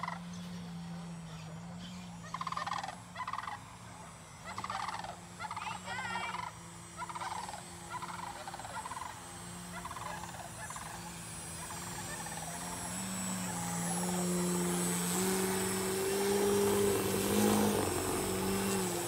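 Large birds give a series of short, rough, rolling calls over the steady drone of a radio-controlled Ultimate AMR 60 biplane's motor and propeller as it hovers. About two-thirds of the way through, the calls stop and the drone grows louder and slightly higher.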